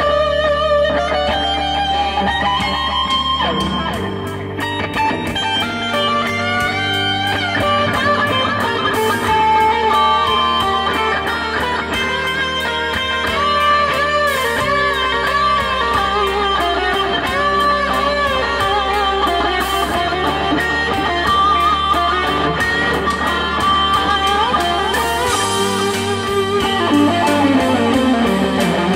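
Kramer Assault electric guitar improvising a single-note lead in G minor, with bent and sliding notes, over a country-rock backing track with bass and drums.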